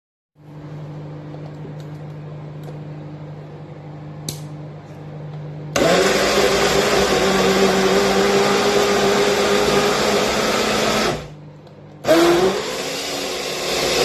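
Electric kitchen blender running: a lower, steady hum at first, then switched up to a much louder high speed about 6 seconds in, cut off about 11 seconds in, and started again a second later, spinning up.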